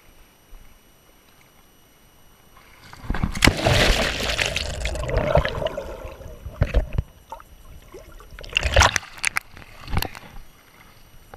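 A swimmer plunging into lake water: a loud splash about three seconds in, dying away into muffled underwater gurgling, then shorter splashes near the end as the swimmer surfaces and hauls out onto a wooden dock.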